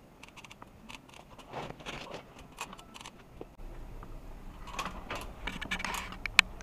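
Scattered clicks, knocks and rustling from equipment being handled, with a low steady hum coming in about halfway through and a sharp click near the end.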